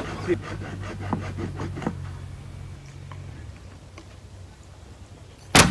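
Hand saw cutting through wood in steady strokes, about three a second, stopping about two seconds in. Near the end comes one loud, sharp knock of a blow struck on the wood.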